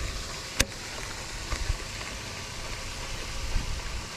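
Wind rumbling on the microphone over a steady hiss, with one sharp click about half a second in from the baitcasting reel being worked for a cast, and a couple of faint ticks a second later.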